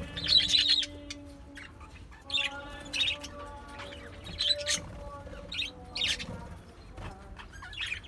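A flock of budgerigars chirping, in short bursts of high chirps and chatter every second or so.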